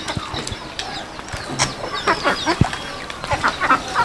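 Birds calling: many short overlapping chirps and clucks, poultry clucking under high chirping.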